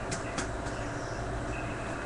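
Steady low hum and background noise, with a couple of light clicks in the first half second.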